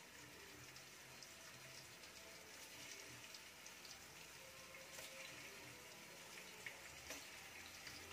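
Potato sticks frying in shallow hot oil in a pan, the first fry of double-fried French fries: a faint, steady sizzle with a few small pops.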